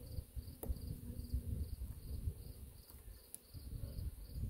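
Honey bees buzzing around a frame lifted out of an open hive, over a low rumble. A high insect chirp repeats about twice a second throughout, and there are two faint ticks.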